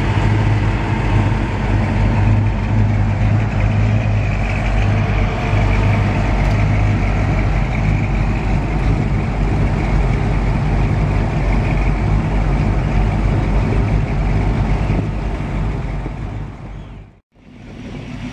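Classic cars' engines idling as the cars roll slowly past one after another, a steady low rumble. It fades out briefly a little before the end, then comes back.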